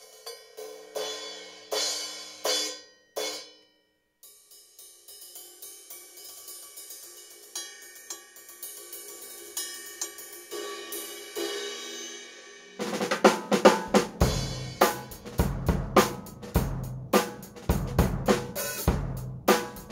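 Dixon Riot drum kit with Paiste 101 brass cymbals being played. A few ringing cymbal crashes come first, then a short pause and a run of light, even cymbal strokes. About 13 seconds in, the full kit comes in with bass drum and snare in a steady beat.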